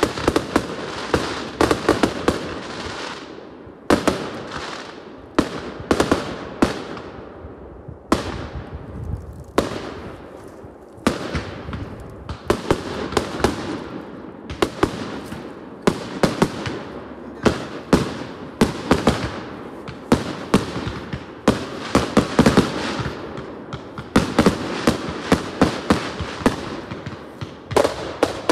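Professional aerial fireworks display bursting in rapid succession: sharp bangs in quick clusters every second or two, each with a fading tail, without a pause.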